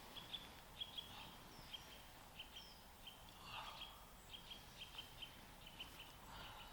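Small birds chirping faintly: many short, high chirps repeating irregularly, with a few higher falling notes.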